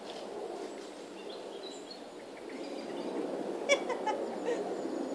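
Pigs grunting, with one short, sharp squeal about three and a half seconds in. Faint bird chirps sound behind them.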